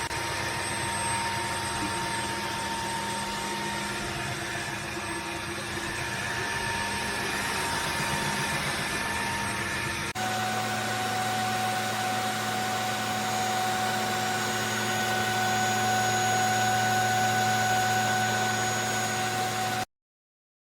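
Dreame H14 cordless wet-dry vacuum mop running, a steady motor hum with a high whine. The pitch of its tones changes abruptly about ten seconds in, and the sound cuts off suddenly just before the end.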